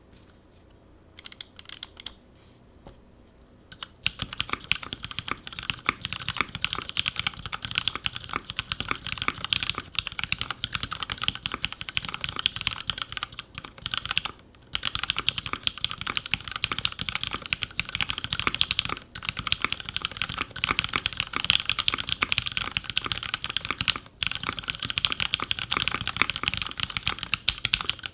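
Custom 60% mechanical keyboard with lubed and filmed Cherry MX Hyperglide Black linear switches in a full nylon plate and GMK keycaps, being typed on. A few scattered keystrokes come first, then fast continuous typing from about four seconds in, with a few short pauses.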